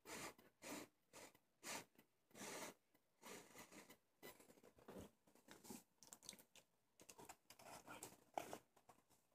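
Faint chewing of a mouthful of food close to the microphone: short, soft, irregular mouth noises every half second or so.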